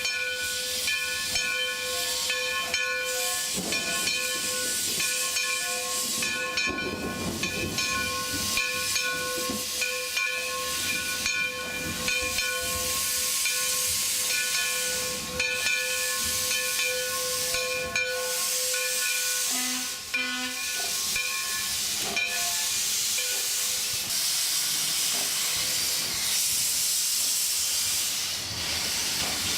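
Black River & Western #60, an Alco 2-8-0 steam locomotive, hissing steam steadily, with a steady ringing tone over the hiss. The tone stops about three-quarters of the way through, leaving only the hiss.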